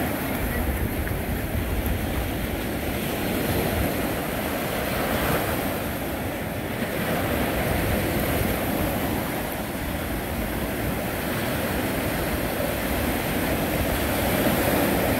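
Ocean surf breaking and washing up the beach in slow swells, with wind rumbling on the microphone.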